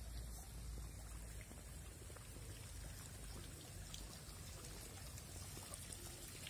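Water from a stone rock fountain trickling and splashing into its pond basin, a faint steady sound.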